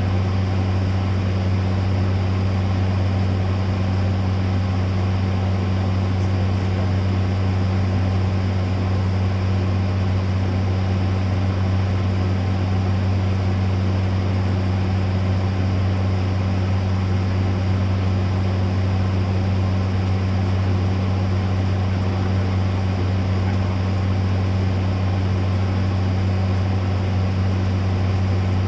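Steady low mechanical hum with an even hiss over it, unchanging in pitch and loudness.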